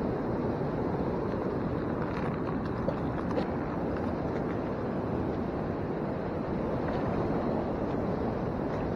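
Steady rushing of river water, with a few faint clicks between about two and three and a half seconds in.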